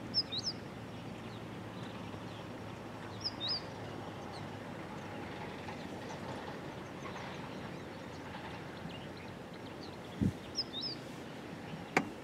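Open-air ambience with a steady low hum. Over it a bird gives the same short high chirp three times: at the start, about three and a half seconds in, and again near eleven seconds. There is a low thump about ten seconds in and a sharp click near the end.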